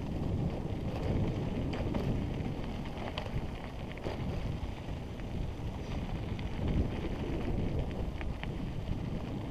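Wind buffeting the microphone of a helmet-mounted action camera on a mountain bike descending a dirt trail, with a steady low rumble of tyres on the dirt and occasional small clicks and rattles from the bike.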